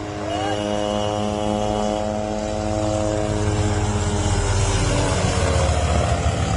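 Small light helicopter flying low overhead: rotor beat and turbine hum with a steady whine that drifts slightly lower in pitch and grows louder as it comes closer.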